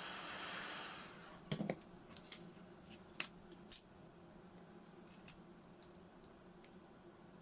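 A steady hiss fades out in the first second or so. Then come a few sharp clicks and small taps, the loudest three between about one and a half and four seconds in, as small hard parts are handled.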